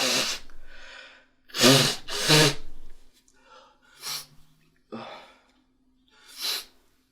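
A person sneezing repeatedly: a loud sneeze at the start and a loud two-part sneeze about two seconds in, then three shorter, softer bursts of breath.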